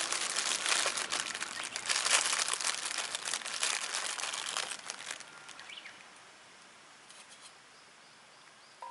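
Crinkly rustling and crackling of a bag of pre-cut cabbage stir-fry vegetable mix being handled, with crisp leaf sounds, dying away about five seconds in.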